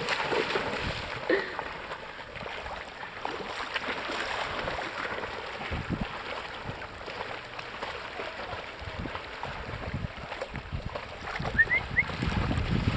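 Dogs splashing as they bound and wade through shallow sea water, over a steady wash of small waves. Two short, high rising chirps come near the end.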